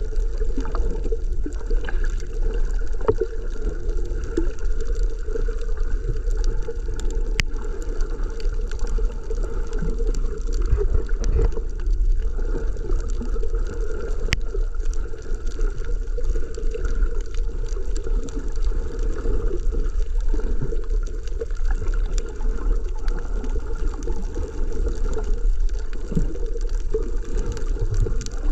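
Underwater sound picked up through a GoPro's waterproof housing: a steady, muffled rumble of moving water, with a few sharp clicks scattered through it.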